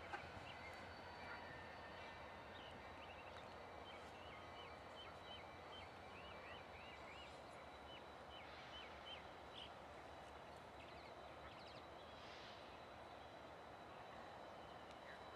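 Faint outdoor ambience: a small bird calls a quick run of short repeated chirps over several seconds, above a low, steady rumble from distant diesel locomotives.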